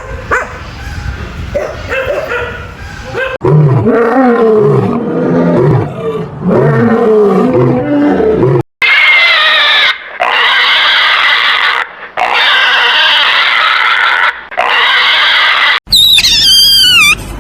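A run of different animal calls, cut one after another: lower, wavering calls, then higher, warbling calls, then quick up-and-down whistles near the end.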